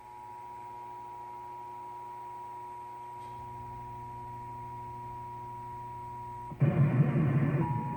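Emergency Alert System two-tone attention signal, two steady high pitches sounding together, broadcast over radio during a Required Monthly Test. Near the end a loud noise about a second long briefly covers the tone.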